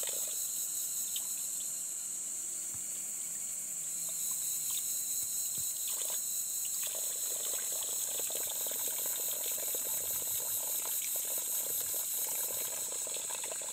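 Spring water running steadily out of the end of a blue irrigation hose into a muddy pool, over a steady high-pitched hiss.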